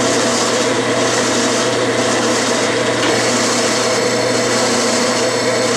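Metal lathe running steadily at about 500 RPM while a carbide-tipped boring bar takes a light clean-up pass inside an aluminium bore.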